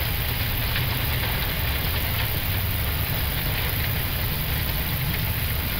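Steady low rumble and roar inside an Airbus A321neo flight deck on the landing rollout, as the airliner slows on the runway under reverse thrust and autobrake.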